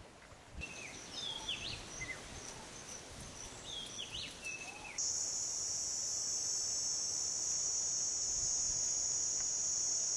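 Birds give a few short chirps and swooping calls over a faint, high, steady insect whine. About five seconds in, a louder, steady, high-pitched insect drone takes over.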